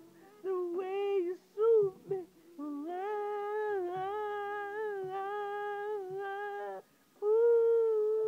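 A man singing without clear words in a high voice: a few short phrases, then one long wavering note held for about four seconds, and after a brief break a louder held note near the end.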